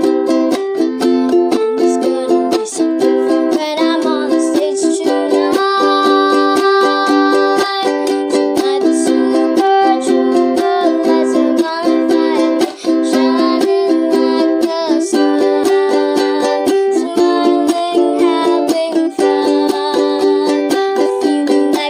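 Ukulele strummed in a steady, quick rhythm, playing the chords of a pop song. A child's singing voice joins at times.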